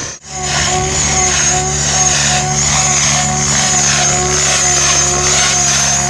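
Mikado Logo 700 electric RC helicopter flying past, its Scorpion brushless motor and drivetrain giving a steady high whine over the swish of the main rotor blades.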